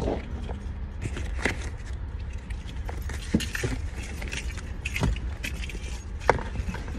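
Crinkling and clicking of a small plastic wrapper being handled, in scattered short bursts, over a steady low car rumble.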